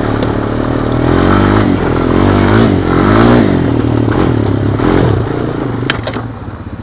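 Honda Recon ATV's single-cylinder engine revving up and down in repeated surges on a rough leaf-covered trail, with clattering from the rack and chassis over bumps. A sharp knock comes near the end as the throttle eases off and the engine drops back.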